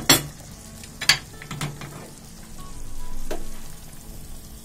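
Melted butter with dried mint sizzling in a small pan beside a pot of simmering yogurt soup. Sharp clinks of kitchenware near the start and about a second in, then a metal ladle scooping through the soup.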